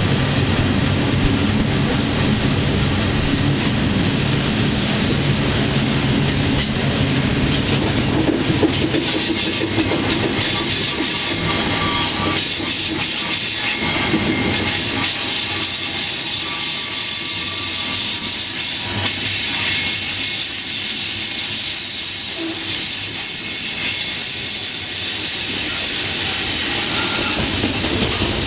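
Freight train running, heard from on board: a steady rumble and rattle of the cars, heavier in the low end for the first third. From about halfway on, the steel wheels squeal with high, held tones.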